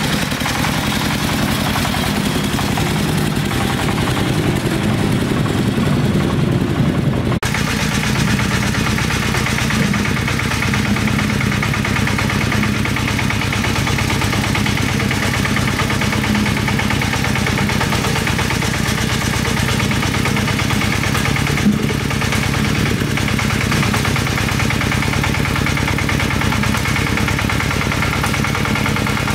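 An engine running steadily; the sound changes abruptly about seven seconds in.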